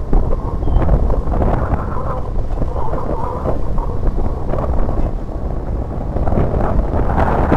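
Yamaha Byson single-cylinder motorcycle running while being ridden, with wind buffeting the microphone as a steady low rumble.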